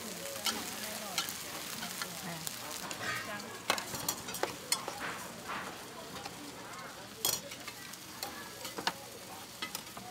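Pan-fried cakes sizzling on a flat iron griddle. A metal spoon scrapes the griddle and clinks repeatedly against steel containers and paper cups as portions are dished up.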